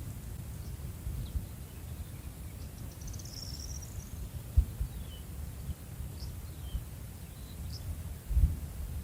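Birds chirping faintly now and then, with a short high trill about three seconds in, over a steady low rumble; a couple of brief low thumps come midway and near the end.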